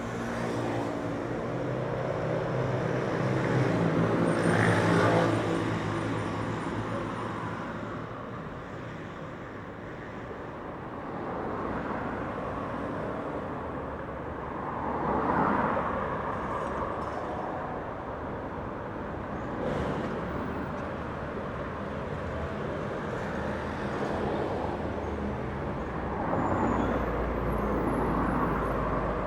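Light city street traffic: vehicles passing one after another at speed, each swelling and fading over a few seconds. The loudest pass-by comes about five seconds in, with an engine hum under the tyre noise.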